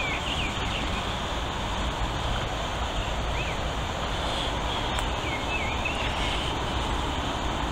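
Steady outdoor background rumble and hiss, with a few faint bird chirps here and there.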